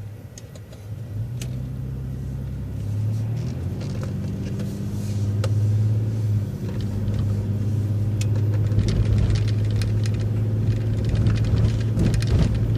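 City transit bus engine running under load as the bus pulls through a turn and picks up speed, a low drone that grows louder over the first several seconds and then holds steady, with a few light clicks and rattles.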